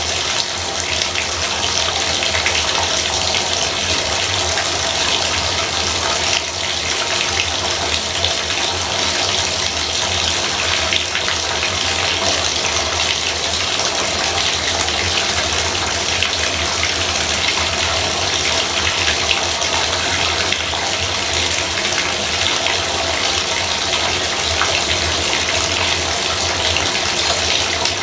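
Bathtub faucet running steadily, water pouring from the spout into the tub in an even, unbroken rush.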